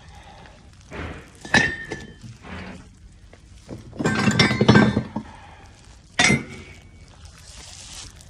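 Metal parts and tools clinking and knocking against one another on a workbench, as in brake caliper restoration work. There are separate sharp clinks, two of them ringing briefly, and a clattering run of knocks near the middle.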